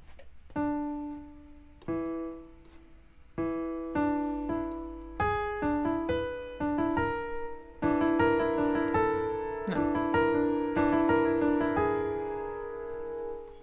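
Electronic keyboard with a piano sound, played by hand. Single notes are picked out slowly at first, then come faster, and from about halfway in there is a denser run of notes and chords. The player is working out the song's atonal harp line by ear.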